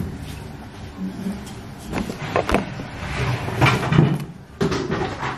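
Kitchen clatter: a few sharp knocks of things being handled and set down, about two seconds in, with more knocking later and low voices in the background.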